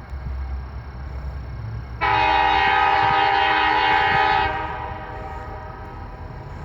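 Nathan K5LA five-chime air horn on a high manifold, sounding one loud steady blast about two seconds in that lasts some two and a half seconds. The lingering end of an earlier blast fades at the start. Under it runs the steady low rumble of the passing diesel locomotives.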